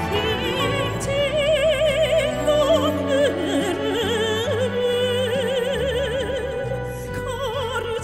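A woman sings a Korean song into a microphone with strong, wide vibrato and long held notes, over sustained instrumental accompaniment.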